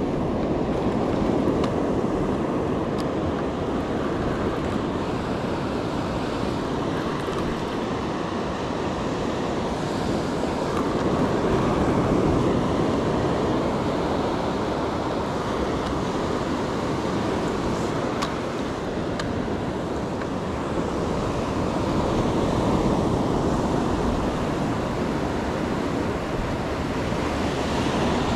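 Ocean surf breaking and washing up the beach, a steady rushing wash that swells and eases about every ten seconds.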